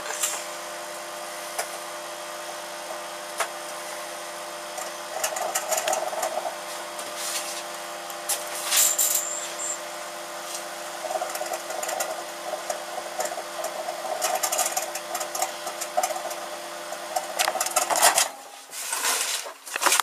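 Microwave oven humming steadily while an incandescent light bulb inside arcs and crackles with irregular clicks and buzzes. The hum stops suddenly near the end, followed by a few knocks.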